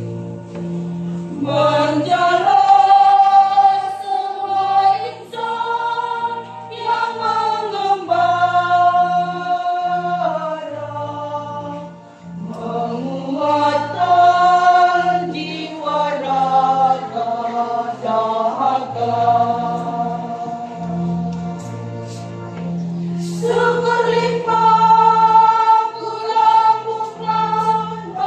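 Church choir singing a hymn in phrases of long held notes, accompanied by an electronic keyboard that sustains steady low bass notes underneath.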